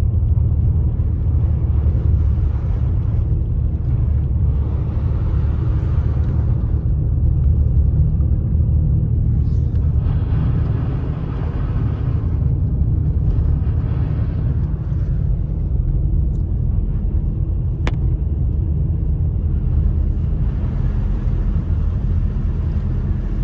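Car interior road noise while driving on wet, slush-covered roads: a steady low rumble, with a higher road hiss that swells and fades several times. A single sharp click sounds near the end.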